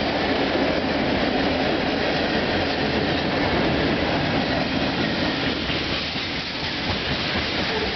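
CN freight train's tank cars and covered hoppers rolling past close by: steady, loud noise of steel wheels on the rails.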